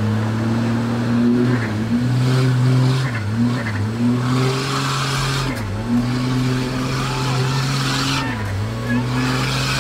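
Engine of a tube-framed off-road 4x4 held at high revs as it churns through a mud pit. The revs drop briefly and climb back several times, with mud and water spraying from the spinning tyres.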